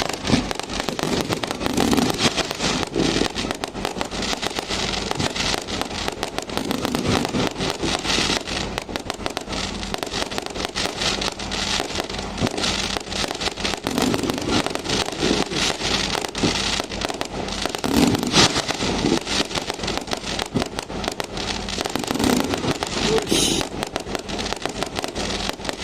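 Many fireworks and firecrackers going off at once: a continuous, dense crackle of sharp cracks and bangs with no pause, with louder bangs standing out every few seconds.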